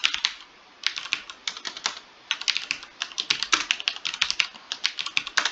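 Typing on a computer keyboard: rapid runs of key clicks in bursts, with two short pauses.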